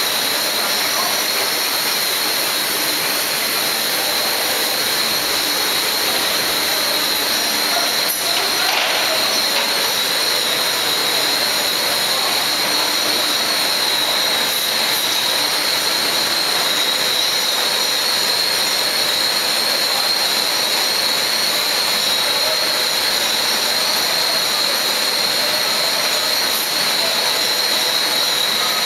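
Billet continuous casting machine running: a steady, loud hissing rush with a constant high whine over it.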